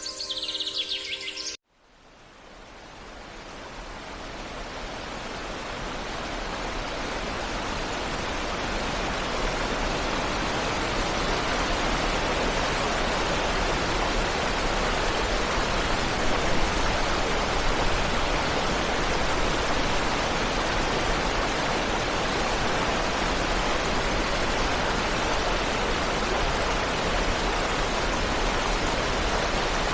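Music cuts off about a second and a half in, then the steady rush of a waterfall fades in over several seconds and holds.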